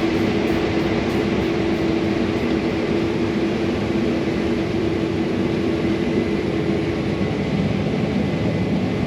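Combine harvester running steadily through corn: a constant drone with a held hum.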